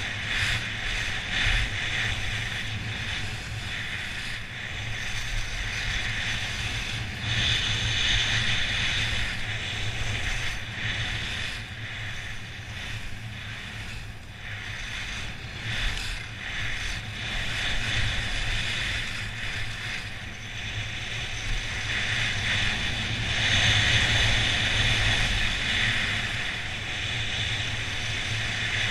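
Skis carving and scraping over firm, packed snow at speed, a steady hiss that grows louder in stretches, with wind rumbling on the microphone.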